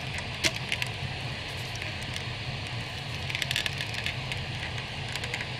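Small clicks and taps of a plastic S.H. MonsterArts King Ghidorah action figure being handled as its parts are fitted: a few scattered clicks, with a short cluster about halfway through. A steady low hum of room noise runs underneath.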